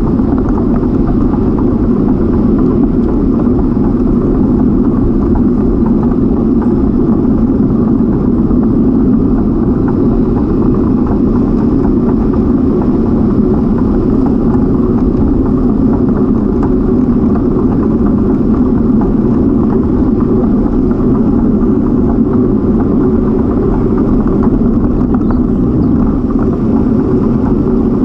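Loud, steady rush and rumble of wind buffeting a camera microphone on a moving bicycle, with no distinct events.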